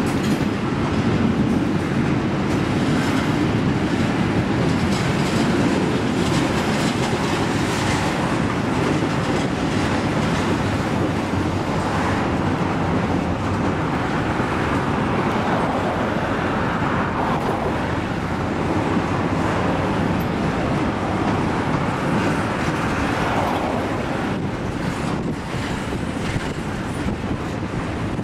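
Double-stack container freight cars rolling slowly past: a steady rumble with wheels clicking over the rail joints.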